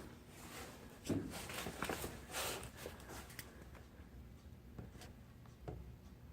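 Faint handling sounds of a contour gauge being flipped over and set against a body panel: light scraping and rustling, then a short tap near the end.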